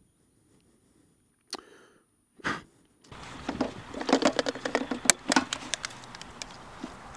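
Camera and microphone handling noise: a sharp knock, a second knock a second later, then a long spell of rustling and crackling with many sharp clicks as the camera is moved about, easing to a steady hiss near the end.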